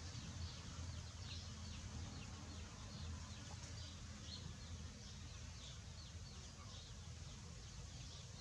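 Faint high chirps, short and falling in pitch, about two a second at irregular spacing, over a low steady rumble.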